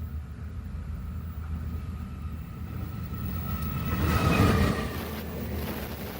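A vehicle passes close by over a steady low rumble: its sound swells to a peak about four seconds in, then fades.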